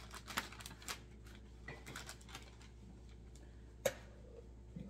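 Faint clicks and taps of a spoon against a glass mixing bowl and a parchment-lined baking sheet as whipped egg white is scooped and dolloped out, with one sharper clink about four seconds in.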